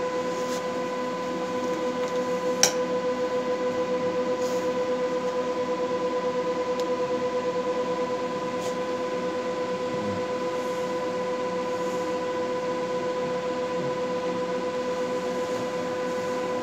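Ultrasonic cavitation handpiece of a body-shaping machine running, giving a steady buzzing tone with overtones. A single sharp click comes about two and a half seconds in.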